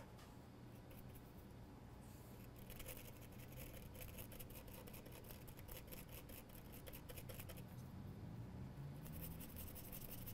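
Faint, rapid scratchy strokes of a small brush scrubbing a wet MacBook Pro logic board, cleaning off corrosion. The scrubbing starts about two and a half seconds in and pauses briefly near the end.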